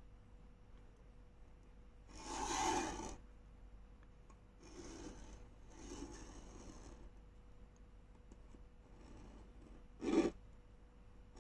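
Pen scratching across paper as it is drawn along a steel ruler to rule a straight line, in several strokes; the loudest stroke comes about two seconds in, with a short sharp scrape near the end.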